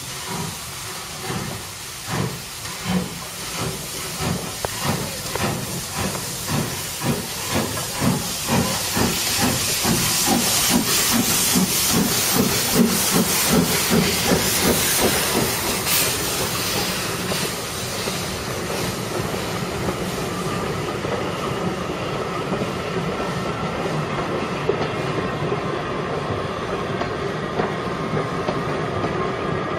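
Steam locomotive pulling away: exhaust chuffs with steam hiss, quickening over the first fifteen seconds or so, then giving way to the steady rolling of the train with occasional clicks from the rails.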